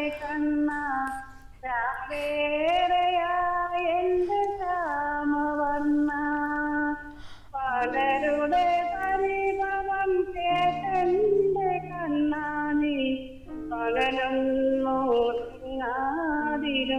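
A woman caller singing a song over the telephone line, holding long notes with short breaks between phrases.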